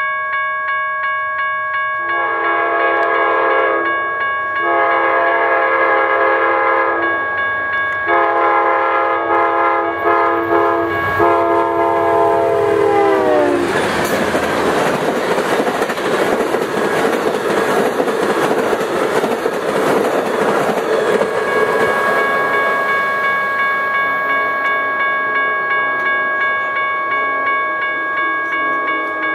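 Horn of an Amtrak GE P42DC Genesis locomotive sounding three long blasts, the last one broken up, its chord dropping in pitch as the locomotive passes. The train then rushes by with wheel and rail noise while crossing-signal bells keep ringing.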